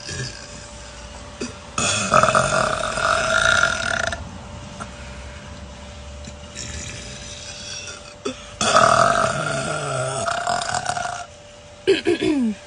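A woman burping loudly: two long drawn-out burps of about two seconds each, then a short burp with a falling pitch near the end.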